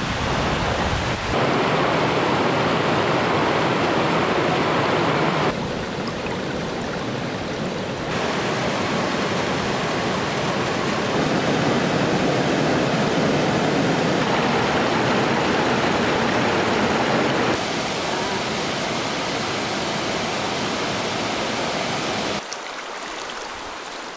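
Steady rushing of a waterfall and its stream, the level and tone of the rush jumping abruptly a few times.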